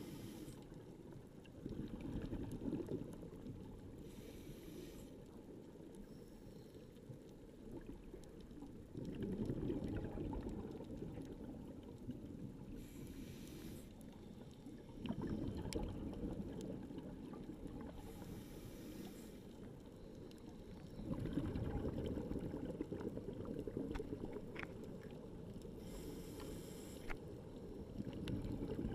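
Scuba diver breathing underwater through a regulator: a short hiss of inhaled air, then a rumbling gush of exhaled bubbles, repeating about every six to seven seconds, heard through an underwater camera housing.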